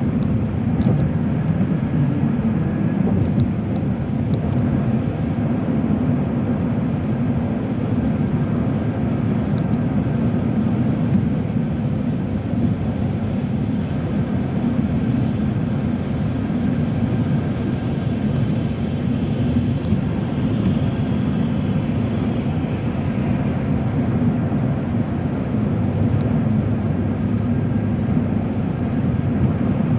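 Steady road and tyre noise with the car's engine running, heard inside a car's cabin at highway speed of about 70 mph.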